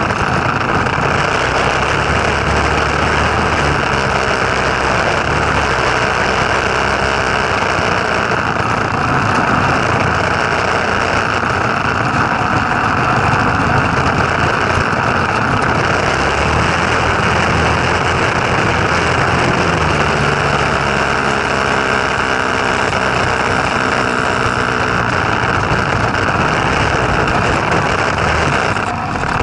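Go-kart's Tecumseh small engine running steadily, its pitch shifting slightly now and then.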